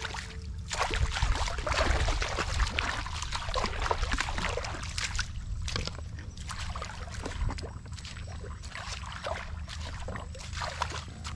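Feet wading through shallow muddy water, with irregular splashing, sloshing and squelching, busiest in the first few seconds, over a steady low rumble.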